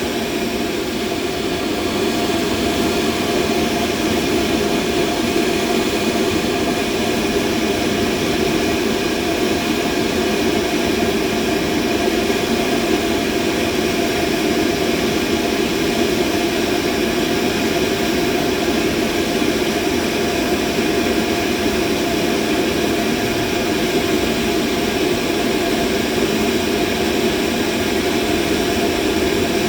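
Steady, unchanging machine hum with a dense mid-low rumble and a few faint steady tones above it, a continuous machinery noise.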